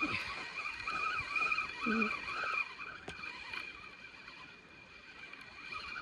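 Fishing reel being wound in: a steady whirring with a slight pulse from the turning handle that stops abruptly about two and a half seconds in.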